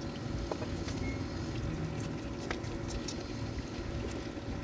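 Pork pieces frying in oil in a wok: a steady sizzle with a few faint pops.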